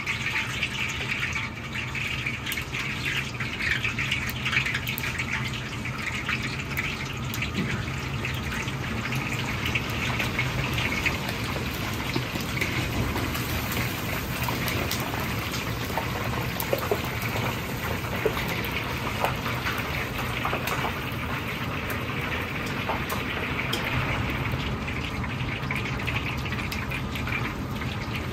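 Deep-frying oil in a large iron wok sizzling steadily around batches of battered pieces, with a scatter of small sharp pops.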